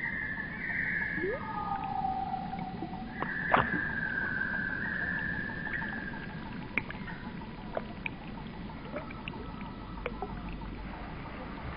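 Garden bird song slowed to a quarter of its speed, heard as long, low, drawn-out whistles and moans. A sharp click comes about three and a half seconds in, with fainter ticks later.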